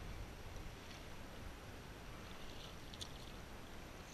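Double-bladed kayak paddle stroking through calm water: faint splashes and drips as the blades enter and leave, clearest about three seconds in, over a steady low rumble.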